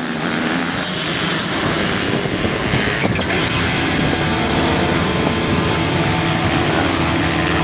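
Motocross bike engines running, a steady drone whose pitches shift as the engines rev.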